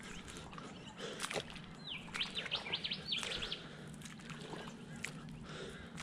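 Wild birds calling: a quick run of short, sliding high chirps about two seconds in, with other scattered calls around it.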